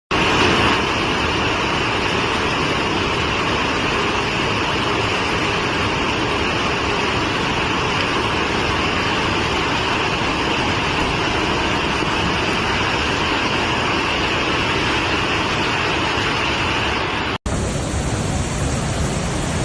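Steady, loud rush of swollen floodwater, an even noise with no rhythm. About seventeen seconds in it drops out for an instant and cuts to another recording of the same kind of rushing.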